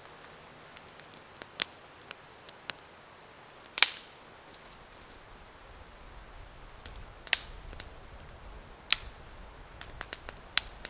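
Dry sticks cracking: a handful of sharp, irregular cracks and pops, the loudest about four seconds in.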